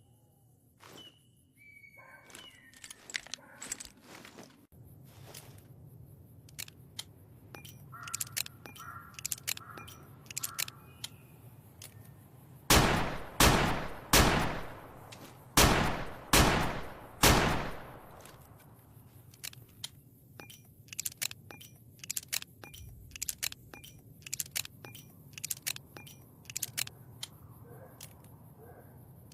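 Colt single-action revolver firing six shots in quick succession, each with a ringing tail. Scattered metallic clicks and ticks come before and after the shots.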